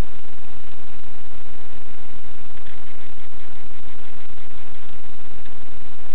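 Loud, steady static hiss with a faint buzz, with no other sound standing out.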